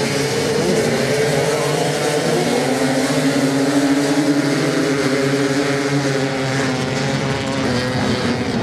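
Several off-road motocross bikes racing on a beach sand track, their engines running together as overlapping notes that rise and fall slightly in pitch.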